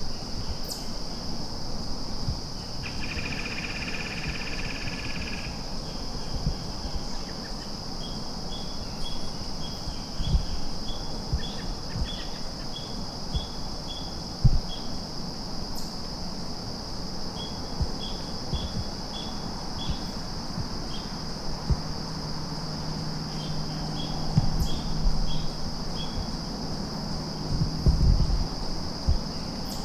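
Steady high-pitched insect chorus in late-summer woods, with two runs of short, evenly spaced chirps laid over it. Scattered low thumps, and a faint low hum in the second half.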